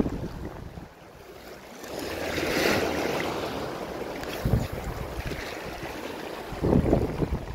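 Small sea waves washing against shoreline rocks, the wash swelling about two to three seconds in. Low rumbles of wind and handling on the microphone come in near the middle and again near the end.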